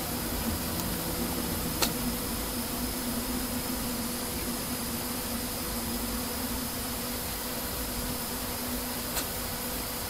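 Steady background hiss with a low, even hum, broken by two short sharp clicks, one about two seconds in and one near the end.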